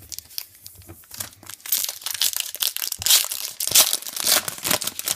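A trading card pack wrapper being torn open and crinkled by hand, with a dense run of crackles that grows louder partway through.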